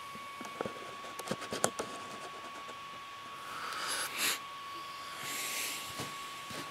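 Camera handling noise: a few light clicks and knocks as the camera is set down, then two soft rustles, over a steady faint high-pitched tone.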